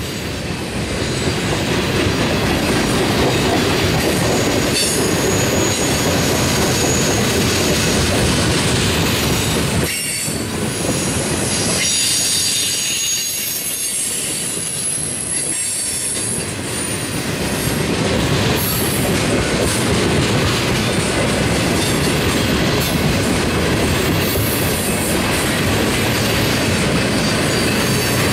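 Freight train's tank cars rolling past close by: steady noise of steel wheels on rail with clickety-clack over the joints and thin high wheel squeal that comes and goes.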